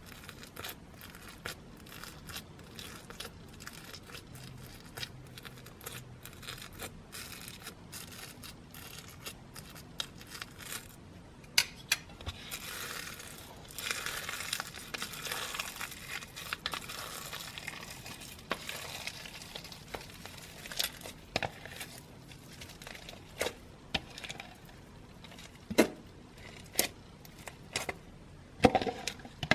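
Slime being squeezed and stretched by hand, giving many small crackling clicks and pops, with a denser crackling stretch about midway and several louder pops near the end.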